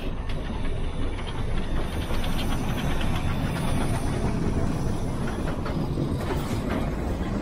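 Narrow-gauge steam locomotive passing at close range with steam hissing, then its goods wagons clattering along the track.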